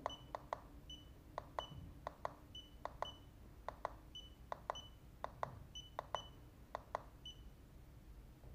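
Huepar LM100A laser distance meter being worked by hand: about a dozen plastic button clicks, most answered by a short high electronic beep, as measurements are taken again and again to check the calibration.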